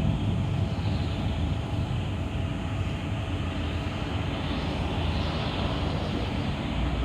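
Moving city bus heard from inside the cabin: a steady low rumble of running gear and road noise.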